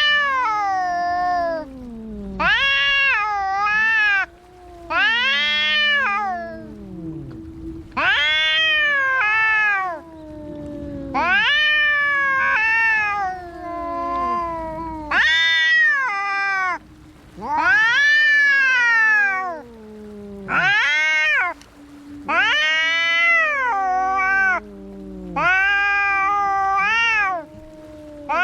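Cats caterwauling in a fight: a string of drawn-out wails, each a second or two long, rising then falling in pitch, coming every two to three seconds over a lower, held yowl.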